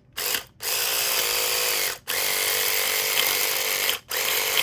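Battery-powered pumpkin-carving saw rigged as an electric lockpick, its reciprocating blade-tip buzzing at a steady pitch against the pins of a padlock. A brief blip comes first, then three runs of about two seconds each with short stops between. The oscillation is very fast, too fast to pick consistently.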